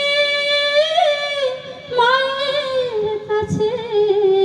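A woman singing a Bengali song unaccompanied into a microphone: a long held note, then a phrase that winds downward and settles on a lower held note near the end.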